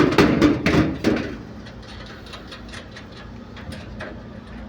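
A few sharp metal knocks and clanks from tools working on a package air-conditioning unit's blower motor, then a steady low hum with light ticking.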